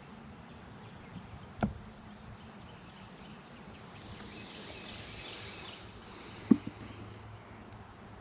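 Outdoor background with a steady high insect trill and short regular chirps above it, broken by two sharp knocks: a light one about one and a half seconds in and a louder one about six and a half seconds in.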